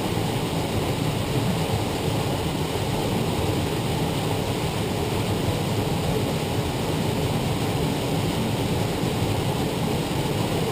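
Steady rushing of a waterfall, an even, unbroken roar of falling water heard from inside a rock tunnel.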